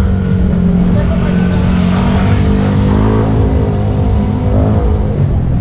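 Motorcycle engine running at low revs close by, a steady hum whose pitch rises and falls slightly around the middle.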